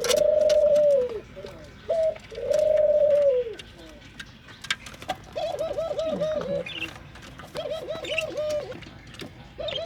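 Doves cooing: twice a short note followed by a long held coo that falls away at its end, then two runs of quick repeated coos.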